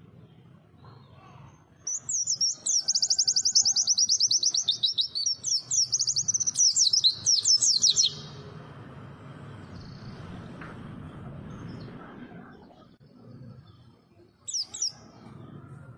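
White-eye (pleci) singing: a fast, high-pitched twittering warble starting about two seconds in and lasting some six seconds, then a few short chirps near the end.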